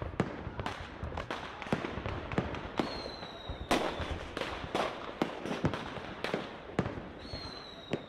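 A rapid, irregular run of sharp bangs over a steady crackle, with a high whistle that falls slightly in pitch about three seconds in and again near the end.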